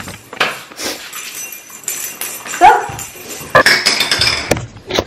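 A pet dog gives a short, high bark or yelp a little past halfway, among household clatter and rustling.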